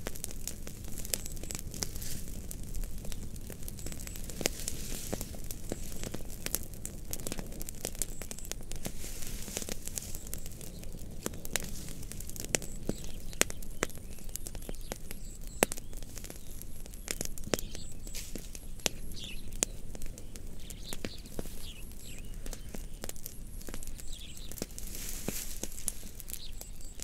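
Fire crackling, with frequent sharp pops and snaps over a steady low rustle.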